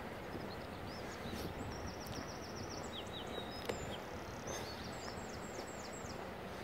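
A small songbird singing two quick phrases of rapidly repeated high notes, about a second and a half in and again past the middle, over a steady rumble of wind on the microphone.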